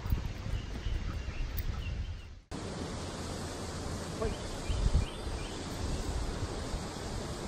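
Wind buffeting the microphone over a steady outdoor rush, cut off abruptly about two and a half seconds in. After that comes a steady rush of water from a small waterfall, with wind gusts on the microphone.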